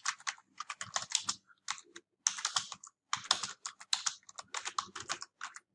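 Typing on a computer keyboard: quick runs of keystrokes broken by short pauses, stopping shortly before the end.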